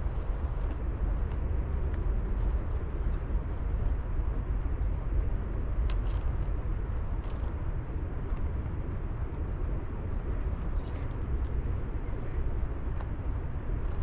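Steady low outdoor rumble, with a few faint, high small-bird chirps in the second half and a thin falling whistle near the end.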